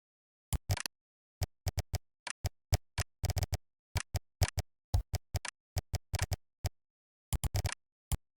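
Computer keyboard keystrokes: irregular typing, single key clicks with short pauses and a couple of quick runs of keys, with dead silence between strokes.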